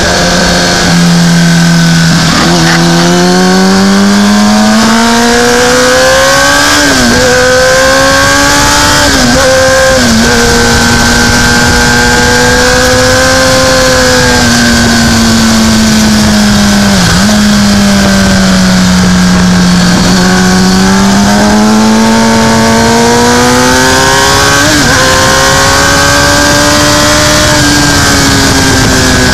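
Racing motorcycle's engine at high revs, heard from a camera on its fairing with heavy wind rush. The engine note climbs, holds, falls away and climbs again, broken every few seconds by brief sharp dips in pitch as it changes gear.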